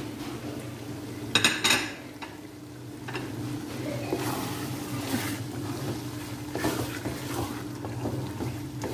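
A spoon knocking a few quick times against a container about a second and a half in, then a spoon scraping and stirring a thick yogurt and vegetable mixture in a metal pot, over a steady low hum.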